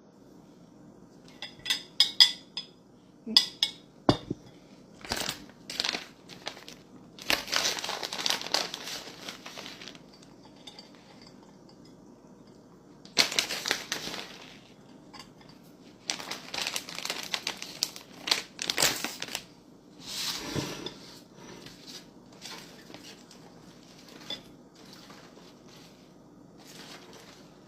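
Food preparation: packaging crinkling and rustling in several long stretches, with a few sharp clinks of dishes or utensils near the start.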